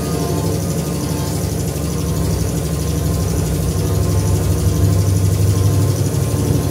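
Modular synthesizer drone built from feedback and processed recordings: dense, rough low tones with a hiss of noise above, swelling louder about halfway through.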